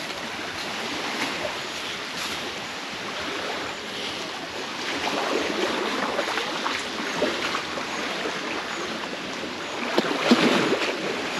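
Small waves washing onto a sandy beach: a steady wash of noise that swells briefly near the end.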